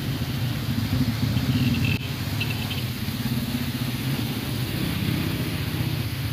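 Motorcycle and car engines running as traffic passes on a road, a steady low engine drone.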